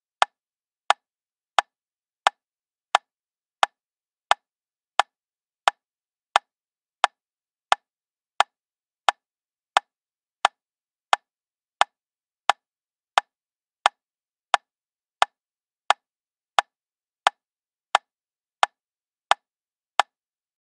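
Metronome ticking steadily at about 88 beats per minute, sharp, even clicks with nothing else between them.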